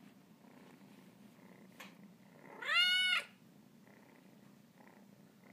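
Cornish Rex kitten purring steadily, with one loud meow about two and a half seconds in that rises and then falls in pitch.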